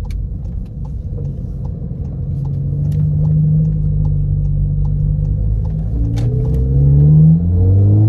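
2015 Volkswagen GTI's turbocharged four-cylinder engine heard from inside the cabin, accelerating, its note climbing and growing louder from about six seconds in. The car is building speed for another brake bedding run. A light, steady ticking runs through the first half.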